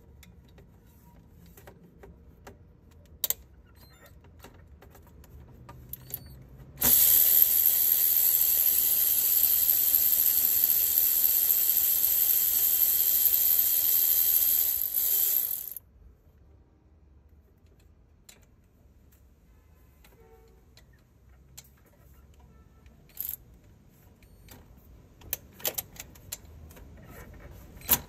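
Electric ratchet with a 3/8-inch 12 mm socket running steadily for about nine seconds, turning out an A/C compressor mounting bolt. It starts about seven seconds in and cuts off suddenly. Light clicks and metal clinks of tools and parts come before and after it.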